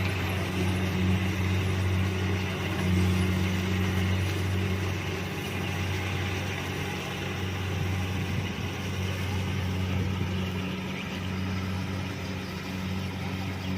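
Kubota DC-70 combine harvester running with a steady, droning engine hum.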